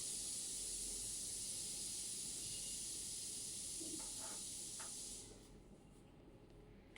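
A steady hiss that stops about five seconds in, with a few faint light taps near the end.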